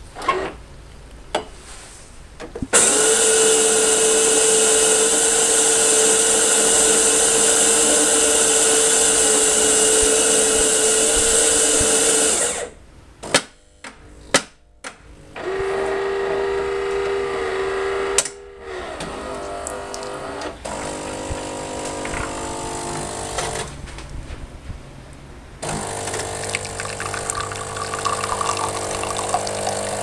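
Saeco Royal Cappuccino bean-to-cup coffee machine brewing a small coffee. Its grinder runs loudly and steadily for about ten seconds. A few clunks and a shorter motor run follow as the brew unit moves, then the pump hums steadily while coffee pours into the cup near the end.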